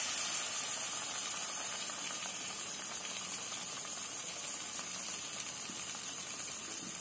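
Batter-coated colocasia leaf roll deep-frying in hot oil in a kadhai: a steady sizzle that eases slightly.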